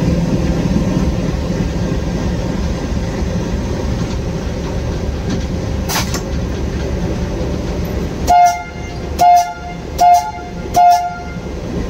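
Diesel-electric locomotive engine running with a steady rumble, heard from the cab with the throttle notched up. About eight seconds in come four short, evenly spaced horn blasts.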